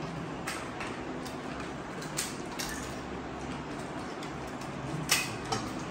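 Scattered light clicks and clinks of people eating panipuri at a table, with crisp puri shells being cracked open and spoons and glass bowls touched, over a steady room hiss. The sharpest click comes about five seconds in.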